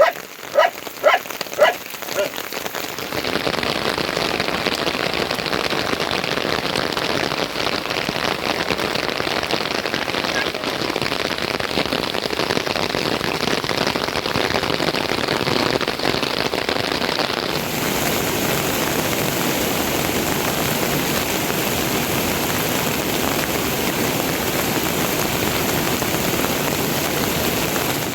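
Heavy rain falling steadily, a dense even hiss that grows brighter about seventeen seconds in. A dog barks four times in the first two seconds.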